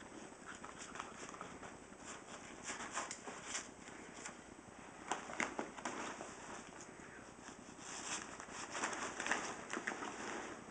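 A chihuahua–whippet mix dog pawing at, digging into and tugging a nylon messenger bag: fabric rustling and claws scratching in irregular flurries, busiest around the middle and again near the end.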